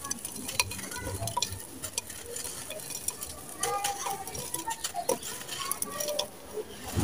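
Dry mud and sand lumps crumbling between the fingers into a clay pot: a steady stream of small crisp crackles over the hiss of falling grains and dust.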